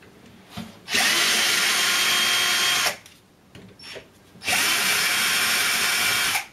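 Cordless drill-driver running in two bursts of about two seconds each at a steady speed, unscrewing screws from a metal chassis frame, with small clicks in the pause between.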